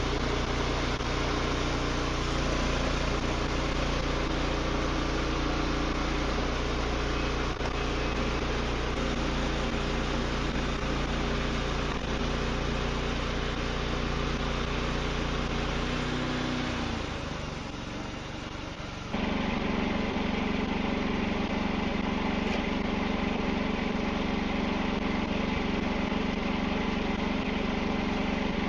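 Wood-Mizer LX55 band sawmill's engine running steadily. About seventeen seconds in it quietens for about two seconds, then comes back suddenly and runs on steadily at a different pitch.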